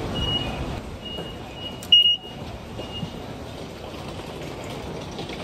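Station ticket gates beeping as IC cards are tapped: a string of short high beeps at one pitch, the loudest about two seconds in, over the steady noise of a busy station concourse.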